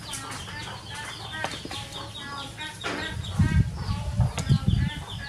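Chickens clucking and chicks peeping in many short chirps, with low rumbling from about three seconds in.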